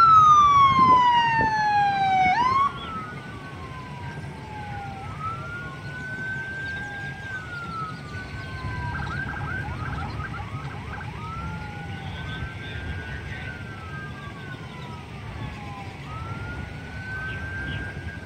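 Police car sirens wailing. A loud, close siren glides down in pitch and cuts off about three seconds in. Several more distant sirens then keep wailing up and down, overlapping, over the low rumble of vehicles.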